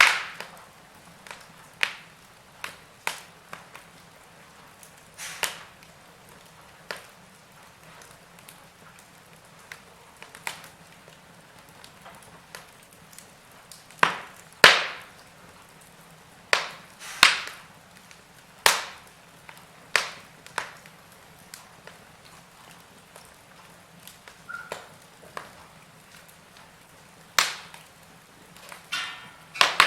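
Wood fire crackling in a fireplace: irregular sharp pops and snaps over a faint steady hiss, the loudest pops coming about halfway through and near the end.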